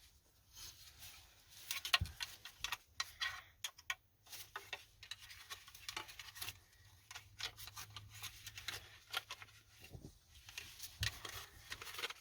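Hands fitting a small plastic aftermarket puddle light into a side-mirror housing: scattered light clicks, taps and rubbing of plastic parts, with a faint low hum underneath.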